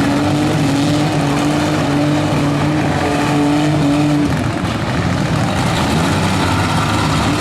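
Several compact cars' engines running at high revs in a demolition derby: one holds a steady high pitch for about four seconds, then drops away, while others rev up and down.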